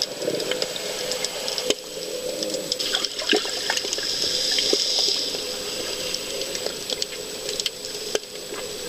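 Underwater ambience recorded through the camera's housing: a watery rush full of scattered clicks and crackles over a steady low hum, swelling into a louder bubbling hiss a few seconds in.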